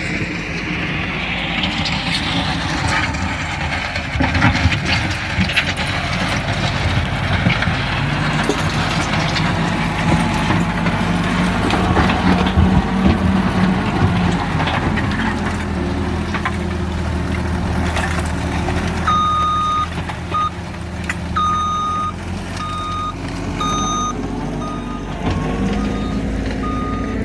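Heavy machinery running steadily, with scattered knocks and clatter. A reversing alarm starts beeping repeatedly about two-thirds of the way in, signalling a vehicle backing up.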